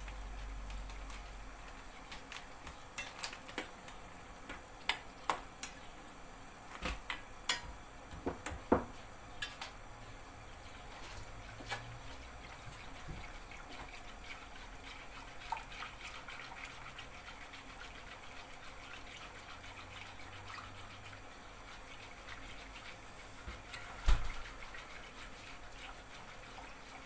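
A wire whisk stirring milk pudding as it cooks in a steel pot, with the liquid sloshing. A run of sharp clicks comes from the whisk knocking the pot in the first third. One loud thump comes near the end.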